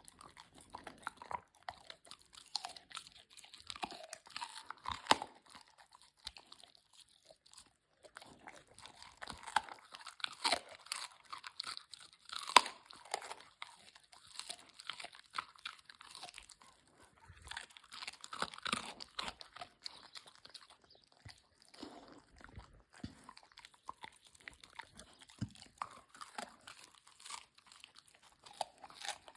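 Crunchy food being bitten and chewed close to the microphone: runs of sharp crackling crunches in bursts, with short pauses between mouthfuls.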